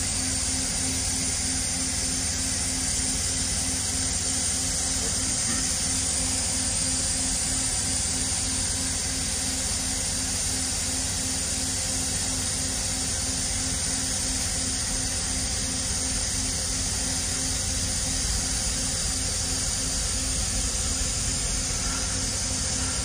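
Enclosed abrasive-blasting head pressed against a wall, blasting grit at the render to strip graffiti: a steady, unbroken hiss of air and abrasive, with a low hum beneath.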